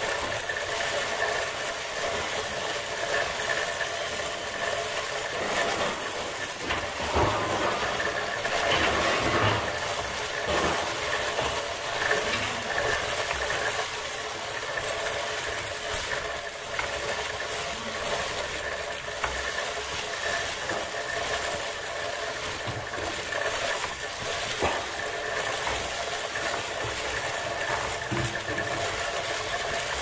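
Electric sheep shears running steadily while cutting fleece: a constant mechanical hum that holds its pitch, with a few faint knocks.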